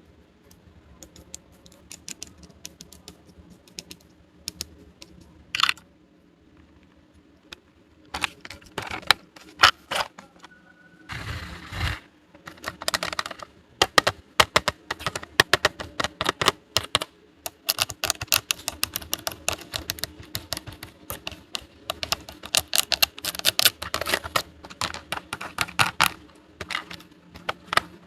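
Small plastic toy pieces clicking and tapping as they are handled and set down: a few sparse clicks at first, then rapid, busy clicking from about eight seconds in. A brief noisy swish comes about eleven seconds in.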